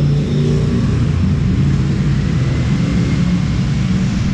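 Ducati Panigale 1299 S's 1285 cc Superquadro L-twin engine idling steadily.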